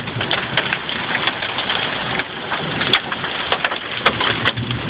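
Heavy fall of large hailstones pelting hard surfaces: a dense, continuous patter of many sharp impacts over a rain-like hiss, with a few louder cracks about three and four seconds in.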